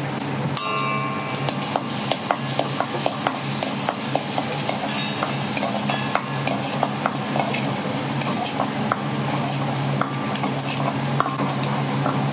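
Minced garlic sizzling in hot oil in a wok, with a metal ladle clinking and scraping against the pan in quick strokes, about three a second. A steady low hum runs underneath.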